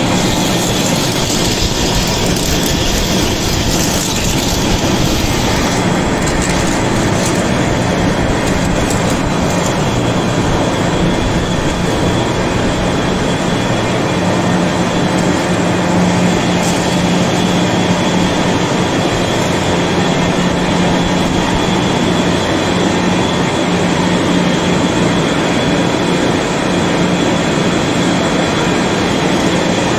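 Heavy-duty vertical lathe running, its tool cutting a large metal ring on the turning table. A steady hum sits under dense, unbroken cutting noise.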